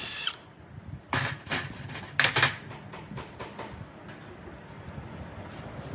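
Knocks and scrapes of a heavy, rusty cast electric motor being handled and shifted on a wooden workbench, with two short clatters about one and two seconds in.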